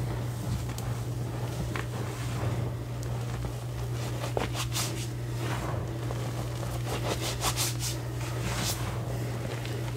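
Hands pressing and rubbing into a heap of loose powdered gym chalk, giving soft, dry crunches and scrapes that come in quick clusters through the second half. A steady low hum runs underneath.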